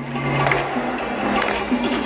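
Live pop music played by a band through an arena's PA, with a beat striking about once a second over a held low note that stops about three quarters of a second in.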